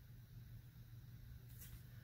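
Near silence: a steady low room hum, with a faint brief rustle about one and a half seconds in as the next bagged comic book is handled.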